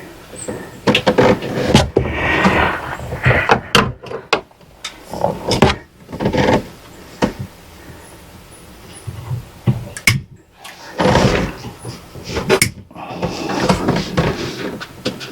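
Irregular knocks, clicks and rustling of hands working on parts and hoses, with several sharp clacks.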